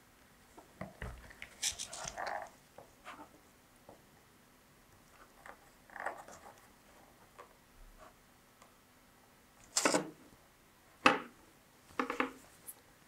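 Scattered small handling sounds: cardboard and plastic rustling, clicking and tapping as a sensor module and its cable are fitted to a cardboard model, with two sharper knocks about ten and eleven seconds in.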